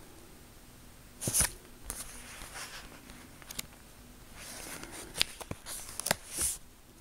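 Pages of a book being turned by hand: a series of short paper rustles and flaps with a few sharp clicks, the loudest about a second in and again near the end.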